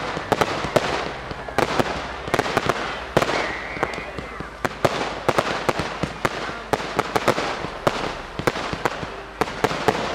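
Fireworks barrage: a rapid, continuous run of sharp bangs several times a second over a crackling hiss, as many shots launch and burst together.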